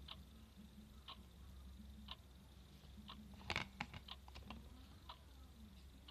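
Faint ticking, one tick a second, from a clock, over a low steady hum, with a short cluster of sharper clicks a little past halfway.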